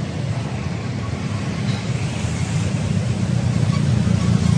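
Steady low rumble of a motor vehicle, without change.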